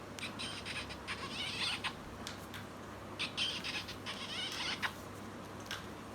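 Children's sound book playing two bursts of high, warbling chirps, about a second apart, with a few short clicks in between.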